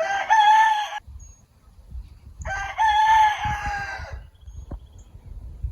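Rooster crowing twice: a shorter crow at the start, then a longer one about two seconds later.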